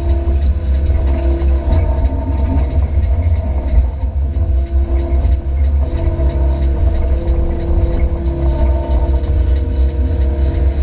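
Diesel engine of an 8-tonne Hyundai midi excavator running under load, heard from inside the cab as a heavy, steady rumble. A hydraulic whine comes and goes every second or two as the boom, bucket and slew are worked to dig soil and load it.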